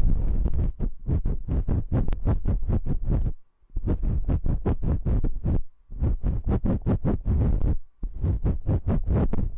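Rapid muffled patting and cupping on a binaural microphone's ears, about five or six deep thumps a second, in runs of about two seconds broken by three short pauses.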